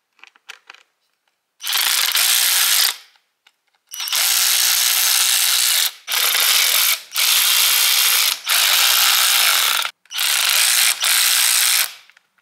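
Cordless power tool with an 8 mm socket running in seven bursts of about one to two seconds each, loosening the bolts that hold the stock air box.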